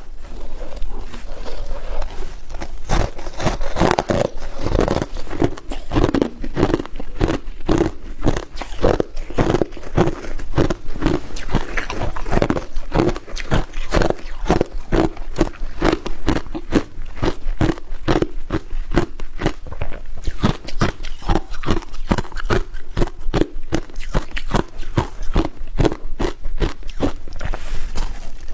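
A person biting and chewing hard ice, with a steady run of sharp crunches at about three a second.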